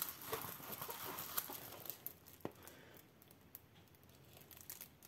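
Faint crinkling and rustling of the clear plastic film covering a diamond-painting canvas as it is handled, busiest in the first two seconds or so, then a few scattered light clicks.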